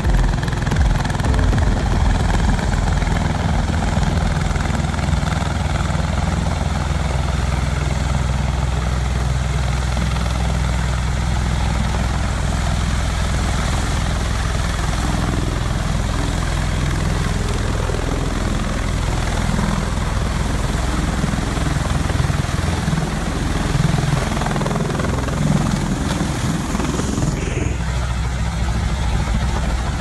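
Bell Boeing MV-22 Osprey tiltrotor hovering close by in helicopter mode: its two big proprotors and turboshaft engines make a loud, steady, deep rotor beat and rumble.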